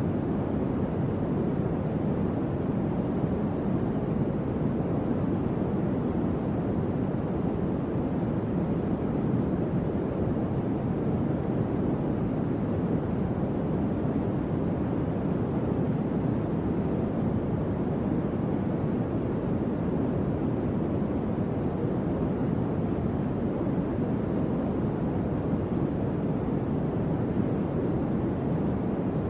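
Electric fan running steadily: an even, low whooshing of moving air with no change in speed.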